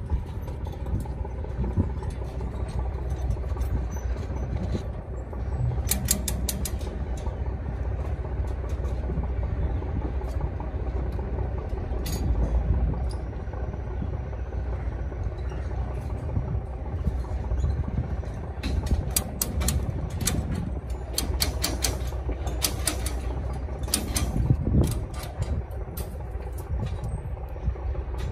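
Steel rebar being tied by hand with tie wire: clusters of short metallic clicks and clinks of wire and tools on the bars, busiest in the second half. Under them runs a steady low rumble.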